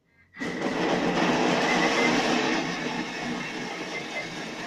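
Countertop food processor starting up and blending a jug of marinated gazpacho vegetables (tomatoes, cucumber) at high speed. It is a loud, steady racket that starts abruptly about a third of a second in.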